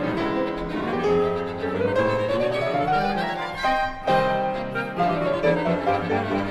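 Classical chamber music for a Pierrot ensemble (flute, clarinet, violin, cello and piano), with bowed strings to the fore over piano. A melodic line climbs for about three seconds, then a sharp new attack comes about four seconds in, followed by a falling line.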